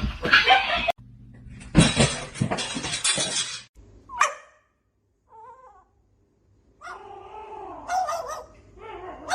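Domestic cat meowing and crying in several short bursts of wavering pitch, with a burst of rustling noise before them.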